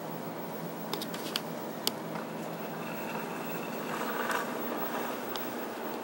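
Steady hiss with a faint hum, broken by a few sharp clicks between one and two seconds in, then a louder rub and bump about four seconds in as the handheld camera is picked up and swung around.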